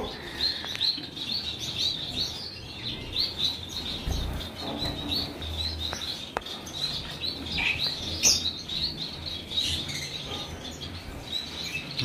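Small caged finches chirping together: a steady stream of short, high chirps, with a couple of light clicks.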